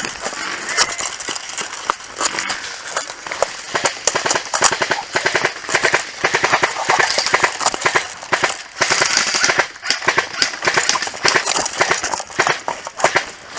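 Airsoft rifle fire: runs of rapid, sharp shots, many a second, going on almost without a break.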